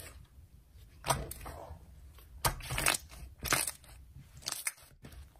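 Translucent pink jelly slime being stretched and pulled apart by hand, giving scattered crackles and small pops as it tears and its air bubbles burst.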